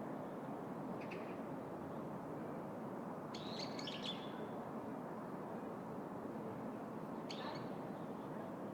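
Small birds chirping in short high calls: one about a second in, a busier flurry around three to four seconds in, and another near the end. Underneath is a steady low hum of city background noise.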